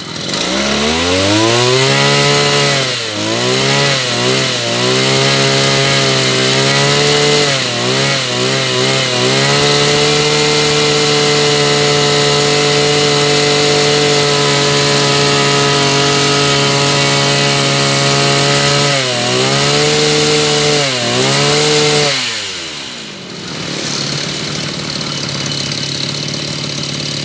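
Mitsubishi TL261 two-stroke brush cutter engine being revved on test: the throttle opens from idle at once, blips up and down a few times, holds at full speed for about ten seconds, blips twice more, then drops back to a steady idle.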